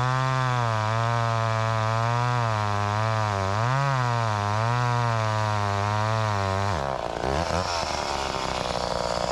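McCulloch Pro 10-10 Automatic two-stroke chainsaw revved up and held at high speed while cutting firewood, its pitch wavering under the load. About seven seconds in it drops back to idle.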